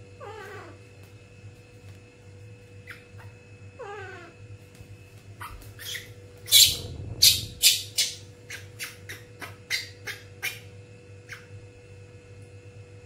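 A baby monkey crying twice, each cry a falling, wavering call, then a rapid string of short, sharp sounds, the loudest about six and a half seconds in.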